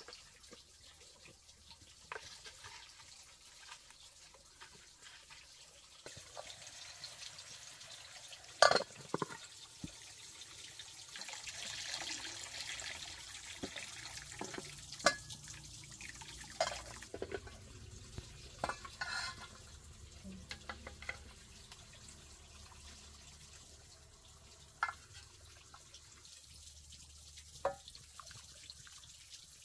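Cooking at an open wood fire: scattered clinks and knocks of a metal pot and utensils, with liquid being stirred and poured. A hissing stretch comes about a third of the way in.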